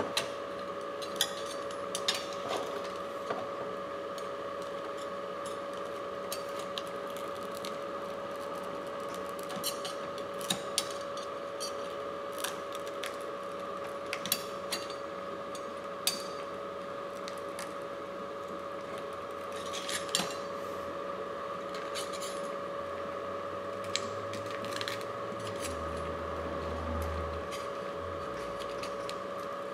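Scattered small clicks and clinks of tools and phone parts being handled on a repair bench, over a steady high whine.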